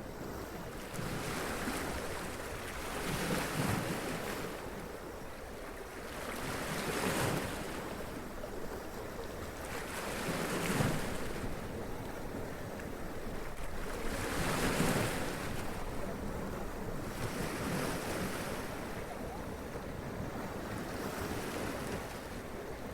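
Sea waves washing up over rocks and splashing, the surf swelling to a rushing surge and falling back every few seconds.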